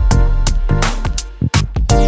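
Background music: drum hits over sustained chords.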